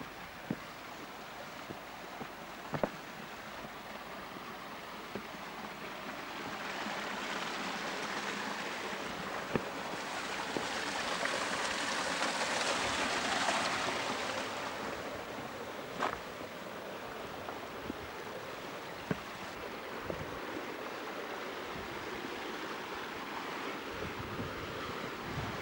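Creek water running over rocks, a steady rushing that grows louder towards the middle and then eases off, with a few sharp knocks now and then.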